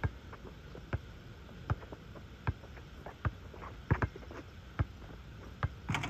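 Basketball being dribbled on an outdoor asphalt court: single bounces in a steady rhythm about every 0.8 s, with a few quicker bounces right at the end.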